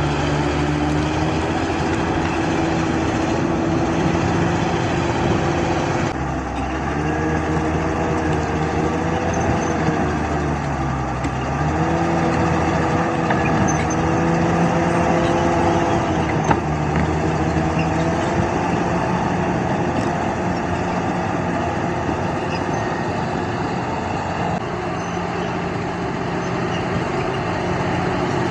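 Bulldozer's diesel engine running steadily under work, its pitch sagging and recovering twice, about six and eleven seconds in.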